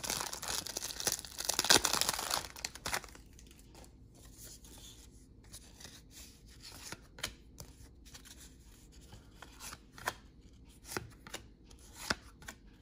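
Trading-card pack wrapper being torn open and crinkled for the first few seconds, then quieter rustling and scattered soft clicks as the cards are handled and flipped through.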